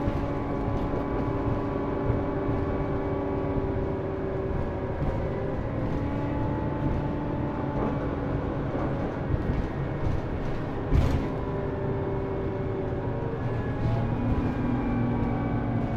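Scania Citywide LF articulated city bus running under way, its engine and drivetrain giving a steady drone with whining tones that step and shift in pitch as it changes speed, rising near the end. A single sharp knock about eleven seconds in.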